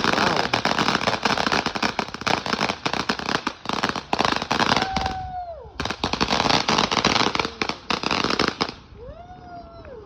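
Firecrackers going off in a dense, rapid string of sharp bangs that runs almost without break. The bangs pause briefly about five seconds in, then stop shortly before the end.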